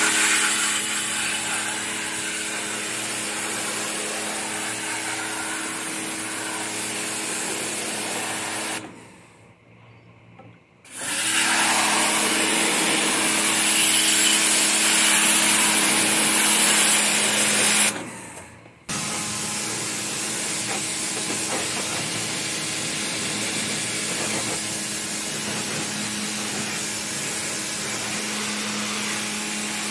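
Electric pressure washer (hidrojet) running, its pump motor humming steadily under the hiss of the water jet spraying the condenser coil fins of a split air conditioner's outdoor unit. The sound stops for about two seconds roughly a third of the way in, then starts again, and drops out once more, very briefly, a little past halfway.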